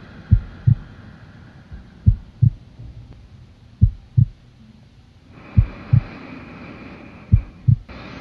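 Heartbeat sound effect: deep lub-dub double thumps, one pair about every second and three-quarters, with a faint hiss coming in about halfway through.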